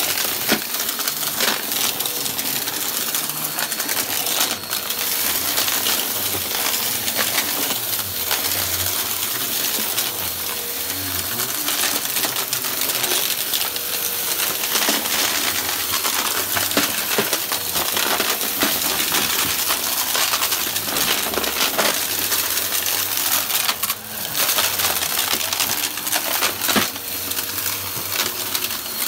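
Upright vacuum cleaner running over carpet, with small crunchy debris rattling and clicking in quick, irregular ticks as the brushroll sweeps it up.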